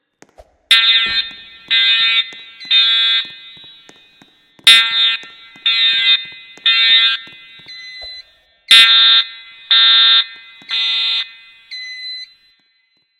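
EST voice-evacuation fire alarm horns sounding the temporal-three evacuation signal: three groups of three loud, harsh blasts, each group about four seconds apart. Fainter, shorter tones follow the second and third groups.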